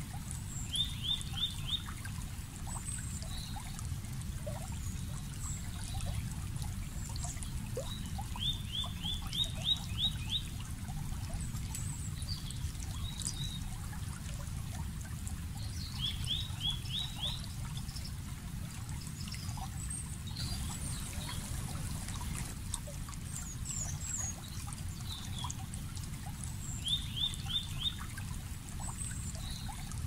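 A stream running steadily, with a bird repeating a short song of four to six quick notes about every eight seconds, and scattered higher chirps from other birds.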